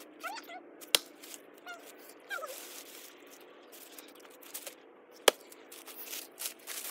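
Axe blade striking a log twice while splitting firewood, once about a second in and again, louder, about five seconds in. Short chirps and rustling of dry leaves underfoot come in between.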